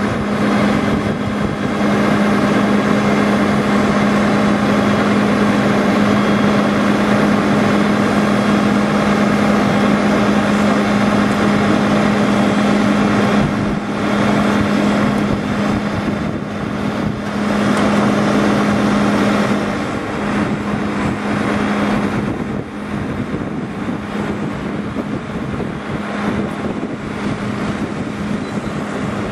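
Diesel engine of a fire service aerial ladder platform running steadily at raised revs to power the boom, with a constant droning hum.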